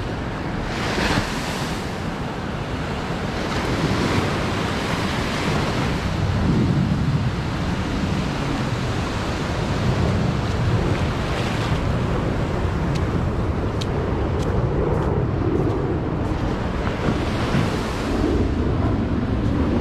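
Ocean surf breaking and washing up a sandy beach in slow, swelling surges, with wind buffeting the microphone.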